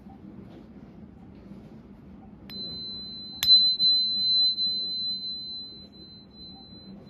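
Purification tuning fork for cleansing crystals, struck twice, lightly and then harder about a second later, ringing one high pure tone that fades slowly.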